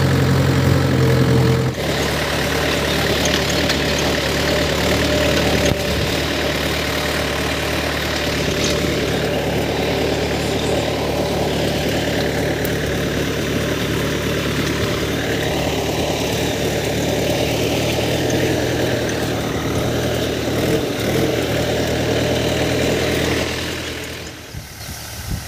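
Mahindra 575 DI tractor's four-cylinder diesel engine running steadily at working speed while pulling a soil-levelling implement. The sound changes abruptly about two seconds in and drops quieter near the end.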